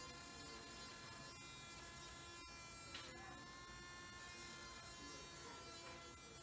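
Oscillating multi-tool buzzing steadily, faint, as its plunge blade carves a shallow channel into a thin walnut-veneered plywood frame.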